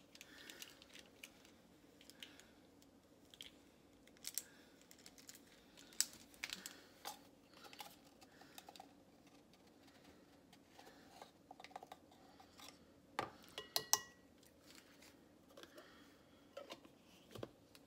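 Scattered light clicks and taps of kitchen utensils and containers being handled while measuring and mixing baking ingredients, with a brief ringing clink about three-quarters of the way through.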